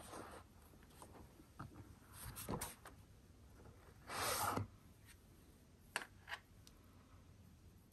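Hands handling a leather traveler's notebook cover and its paper insert: soft rubbing and rustling, with a louder half-second sliding rub about four seconds in and two small sharp clicks around six seconds, as the elastic cord is pulled and tied.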